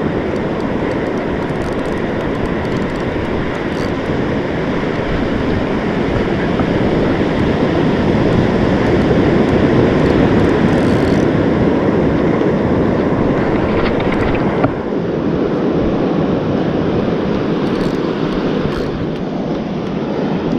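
Steady rush of wind buffeting the microphone over breaking surf.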